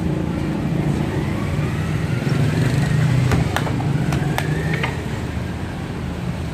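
Street traffic: a motor vehicle engine running close by. It swells and rises slowly in pitch around the middle, with a few sharp clicks midway.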